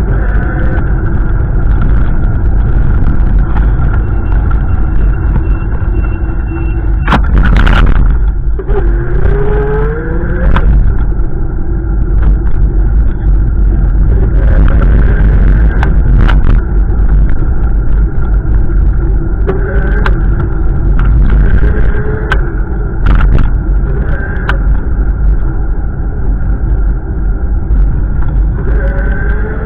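Wind buffeting the microphone: a loud, steady low rumble, with a brief sharp noise about seven seconds in.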